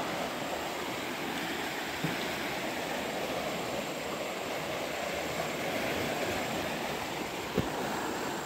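Muddy floodwater rushing and churning below a concrete check dam, a steady rush with no change in pitch. There are two soft knocks, one about two seconds in and one near the end.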